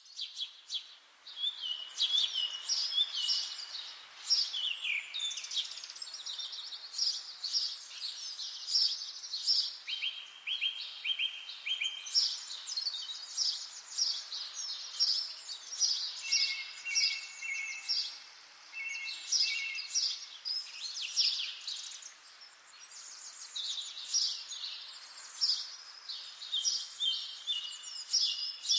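Garden songbirds singing together in an early evening chorus: a dense, unbroken run of quick high chirps, whistles and trills from several birds at once, over faint background noise.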